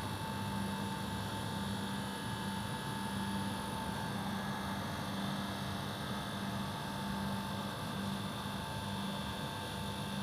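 A steady low hum over a constant hiss, with a faint high tone above it, holding an even level throughout.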